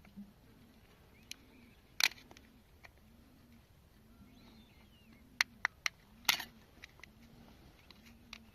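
Scattered small, sharp clicks and knocks of an old alarm clock's parts being handled during disassembly. There is one sharp click about two seconds in, a quick run of three clicks a little past five seconds, and a louder, slightly longer knock just after.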